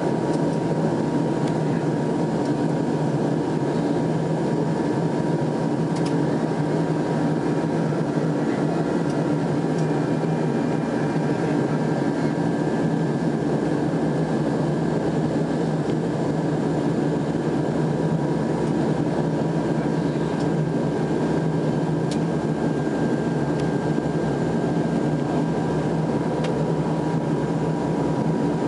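Steady engine drone heard from inside an aircraft cabin as it taxis, with a constant whine above a low rumble.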